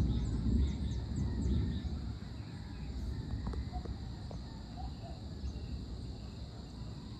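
Distant thunder rumbling low and dying away over the first two seconds, leaving a faint low rumble, over a steady high drone of insects with scattered bird chirps.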